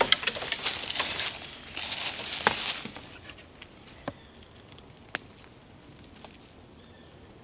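Rustling and crackling of brush and leaf litter being moved through, with sharp snaps, for about three seconds; then it goes quiet apart from three single clicks a second apart.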